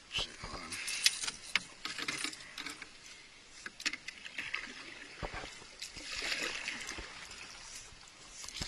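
Water splashing and trickling around a canoe, with scattered knocks and clicks of gear against the hull.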